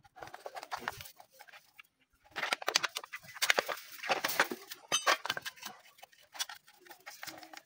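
Irregular metallic clinks and clatters of small-engine parts being handled by hand, with a busy run of rattling in the middle.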